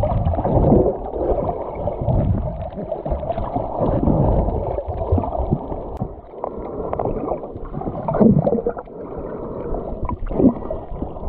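Muffled water sloshing and gurgling, heard by a camera held underwater, swelling and easing in surges every few seconds.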